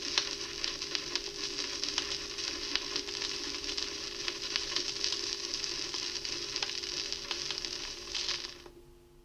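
Vinyl record surface noise, crackling and hissing from the stylus in the groove after the music has ended, over a faint steady hum. The crackle cuts off sharply near the end.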